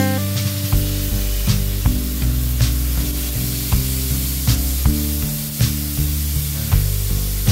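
Ground pork and onion sizzling in a hot stainless steel pan, stirred with a wooden spatula, under background music with a beat.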